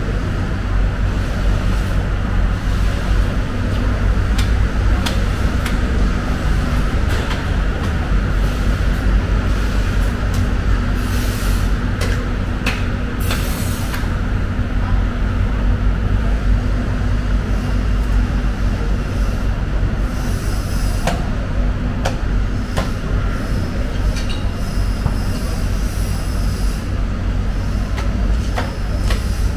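A steady low machinery rumble, with scattered clicks, knocks and a few short scraping hisses from knives working on a whole bluefin tuna.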